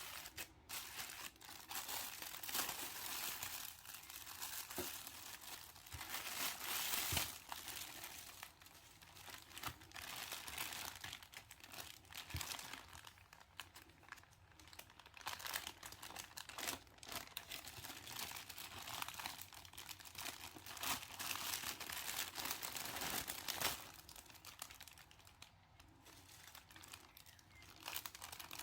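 Packaging crinkling and rustling in uneven bursts as stationery haul items are handled and unwrapped, with the odd tearing sound.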